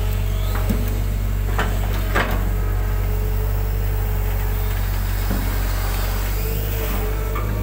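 Hitachi hydraulic excavator's diesel engine running steadily under load while the arm lifts and swings a bucket of mud, with two sharp metallic clanks from the bucket and arm linkage about a second and a half to two seconds in.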